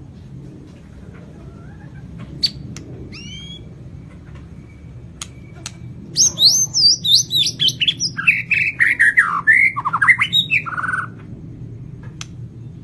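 White-rumped shama (Lampung murai batu) singing: a few sharp chips and short whistles, then about halfway a loud, fast phrase of swooping whistled notes that fall in pitch, ending in a quick trill. A steady low hum lies underneath.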